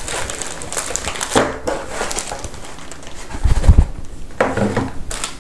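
Cardboard box flaps and the plastic bag around a paper manual rustling and crinkling as they are handled, with a dull thump about three and a half seconds in.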